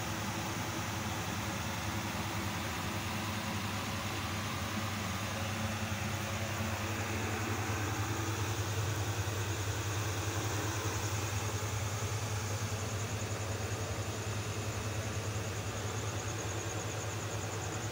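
Steady low mechanical hum with a constant hiss.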